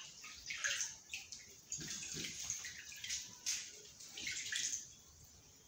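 Liquid poured a little at a time from a small cup into a fish tank's water. It makes irregular splashing and trickling in several short bursts, then goes quiet near the end.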